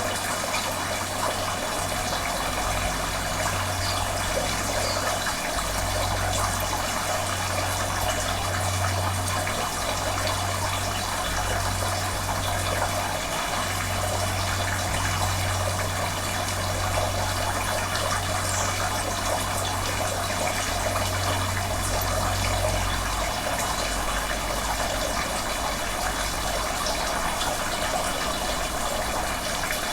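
Steady running water, an even trickling rush with no breaks. Underneath it a deep low hum comes and goes in stretches of a few seconds and fades out about 23 seconds in.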